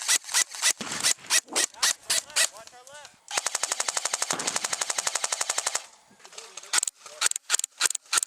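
Airsoft guns firing: a string of single shots, then a rapid full-auto burst lasting about two and a half seconds, then more single shots.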